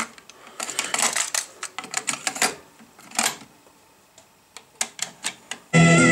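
Irregular mechanical clicks and clatter from a Technics RS-T330R double cassette deck's controls and tape transport being worked. A song then starts playing abruptly near the end.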